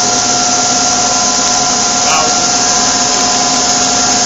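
Daewoo Puma 400 CNC lathe spindle running steadily in high gear: a constant whine over an even machine hiss, with no change in pitch.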